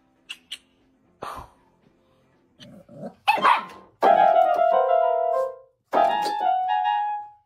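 A dog barking while pressing the keys of an electronic keyboard, setting off two clusters of held notes, one about four seconds in and another about six seconds in. A few short knocks come before it.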